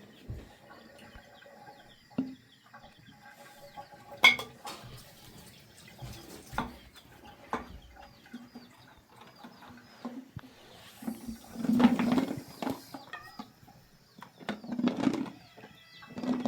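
Chickens clucking and chirping, with scattered knocks and clatter and a couple of louder rustling bursts about twelve and fifteen seconds in.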